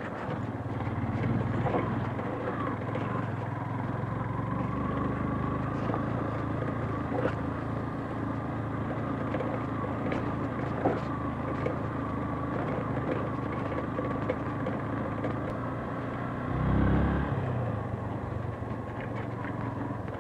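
Motorcycle engine running at a steady pace while riding, with a few faint clicks from the road. Near the end, a brief louder low rush swells and fades.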